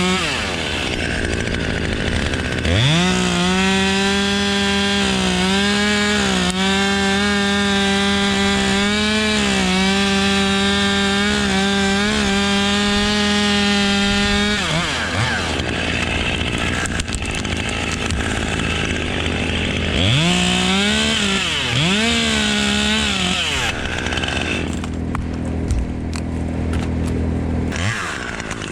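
Chainsaw idling, then held at full throttle through a cut of about eleven seconds, its pitch dipping slightly as it bites into the wood, before dropping back to idle. About twenty seconds in it is revved twice more in short bursts, then idles.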